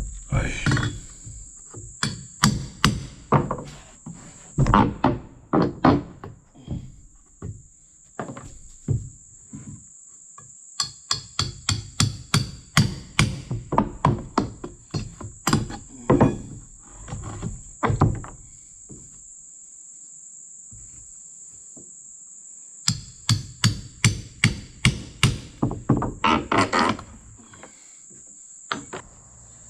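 Hammer striking wood and nails in quick runs of blows, working out the last nails of a porch board, with a pause of a few seconds before the last run. A steady high insect drone sounds throughout.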